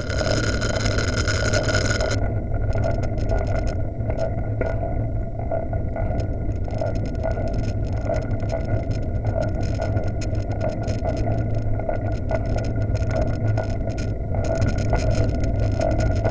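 Wind rushing over the microphone of a bicycle-mounted camera while riding, with a steady low road rumble and many small clicks and rattles from the mount.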